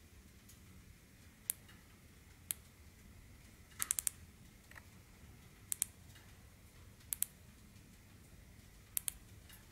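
Sofirn SP40 flashlight's electronic push-button switch clicking as it is worked through its modes. There are two single clicks, then a quick run of four, then three quick double clicks about a second and a half apart.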